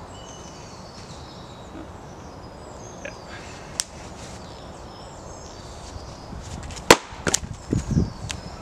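Axe striking a large round of wood on a chopping block: a sharp crack about seven seconds in, a second knock just after, then a few dull thuds.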